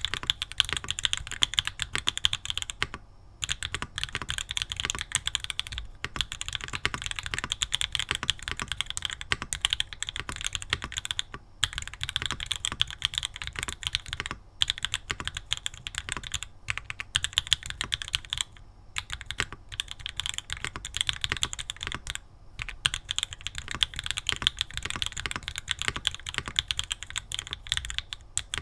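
Typing on a Mode Tempo 60% mechanical keyboard with Obscura switches, Mode keycaps and only the case foam fitted: fast runs of keystrokes broken by short pauses every few seconds.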